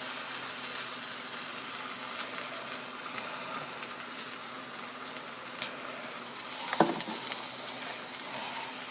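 Food frying in hot oil, a steady high sizzle, with a short knock about seven seconds in.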